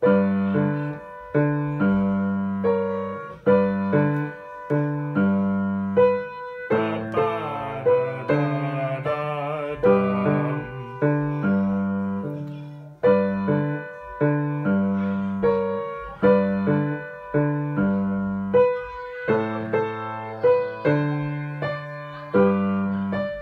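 Piano played hands together: a connected, legato right-hand melody over left-hand chords struck again and again in a steady, lilting rhythm.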